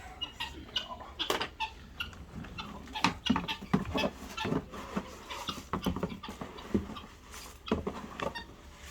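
Animal feed being scooped and poured into buckets, with irregular rustling, scraping and knocks from handling the feed containers.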